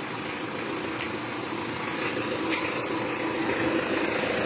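Mitsubishi Adventure engine idling steadily while the lights and other accessories are switched on to load the alternator during a charging test.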